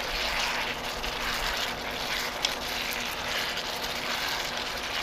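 Noodles and sauce sizzling in a wok as they are tossed with chopsticks, a steady hiss. A single light tap comes about two and a half seconds in.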